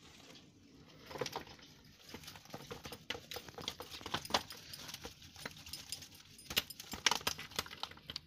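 Woven bamboo fish basket being tipped and shaken over a plastic basin, small freshly caught fish sliding and dropping out into it: a run of irregular clicks, rustles and scrapes starting about a second in.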